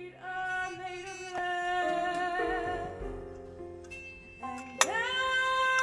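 Film score music with a singing voice holding long notes that waver with vibrato; a louder held note swells in near the end.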